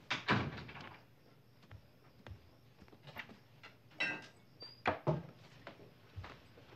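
A door thudding shut at the start, then soft footsteps and a few wooden knocks about four and five seconds in, in a quiet room.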